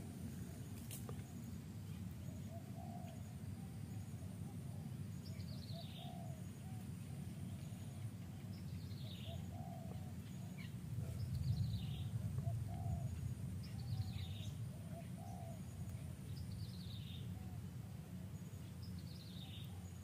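Forest birds calling: one bird repeats a short, high, falling whistle about every three seconds, and weaker low calls come back again and again beneath it, over a steady low rumble of outdoor noise that swells a little around the middle.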